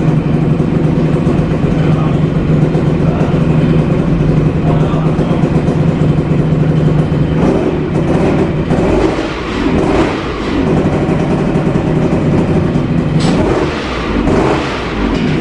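Yamaha RD 135 two-stroke motorcycle engine running through a Prandini aftermarket exhaust: it idles steadily, then is revved up and down in several blips from about halfway through and again near the end.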